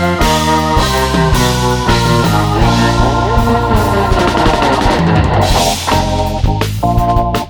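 Background music with drums, guitar and a steady beat.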